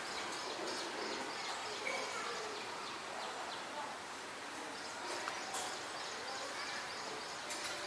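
Outdoor ambience: a steady hiss with scattered faint bird chirps and a few light ticks.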